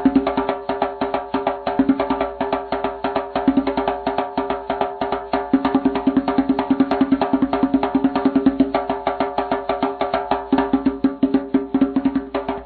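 Drums played in a fast, steady pattern of quick strokes, with a clear pitched ring under the hits.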